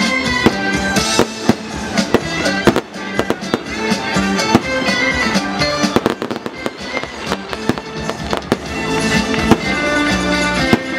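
Fireworks going off in many sharp bangs and crackles, irregular and frequent throughout, over loud music playing at the same time.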